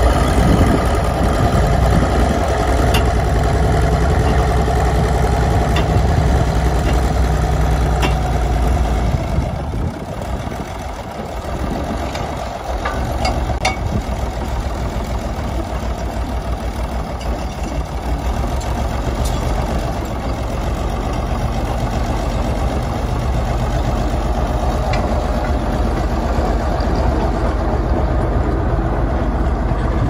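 Case 1150 crawler bulldozer's diesel engine running steadily as the machine drives on gravel; the engine note dips about ten seconds in, then settles back to a steady run.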